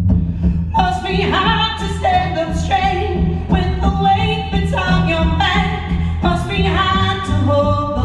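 Live band music: a woman singing lead over strummed acoustic guitar and electric guitar, with a steady low pulse underneath. Her voice comes in about a second in.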